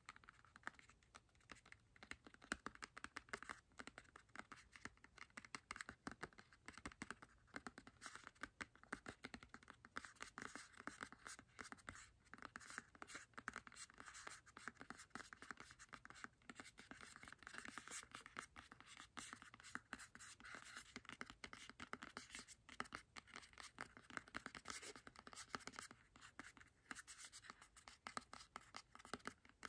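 Fingernails tapping and scratching rapidly on a small printed cardboard shaving box, a dense run of quick, uneven clicks.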